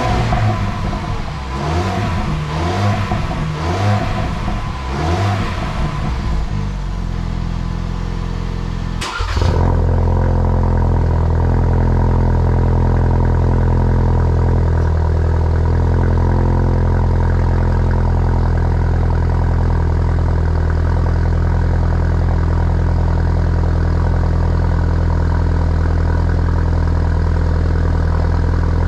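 Exhaust of a 2.3L Ford Bronco's turbocharged four-cylinder, revved in quick blips about once a second. After a cut about nine seconds in, it settles into a steady, louder idle.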